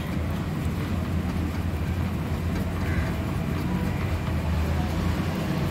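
A steady low background rumble, even and unbroken.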